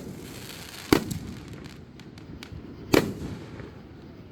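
Fireworks going off: two loud bangs about two seconds apart, each with a short rumbling tail, and a few faint pops between them.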